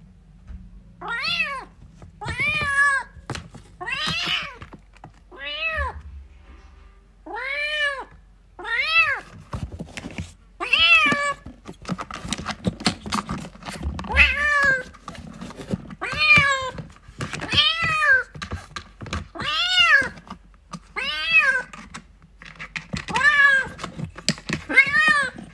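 Kitten meowing over and over, about sixteen high-pitched calls, each rising then falling in pitch, one every one to two seconds: a kitten calling for its mother. A few faint knocks sound near the middle.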